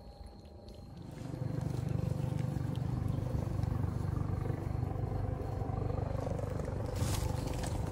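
A cat purring close to the microphone as it laps milk from a dish: a steady low rumble that starts about a second in. A brief rustle comes near the end.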